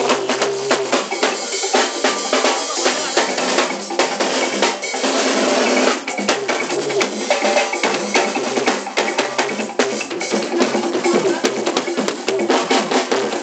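Live Fuji music: a band plays a driving drum and percussion rhythm with many fast, closely packed hits.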